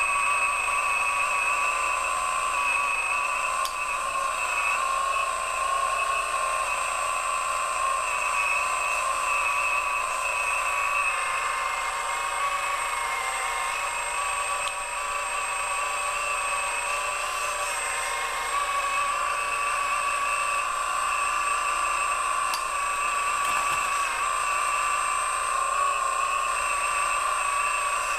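Radio-controlled model Komatsu hydraulic excavator whining steadily as its pump drives the boom, arm and bucket while digging, the pitch wavering slightly as it works.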